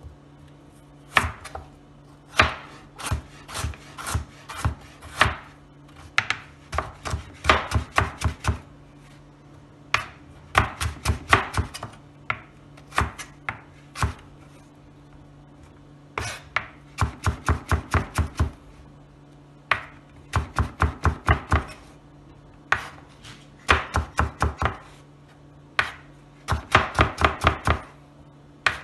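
Kitchen knife chopping a carrot into sticks on a plastic cutting board: quick runs of sharp knocks, several strokes at a time, with short pauses between runs.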